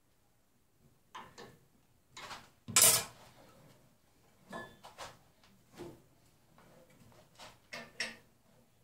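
Scattered knocks and clunks of a wood lathe and its bowl blank being handled while the lathe is stopped: the mulberry blank is turned by hand in the chuck and parts of the lathe are set. One loud, sharp knock comes about three seconds in.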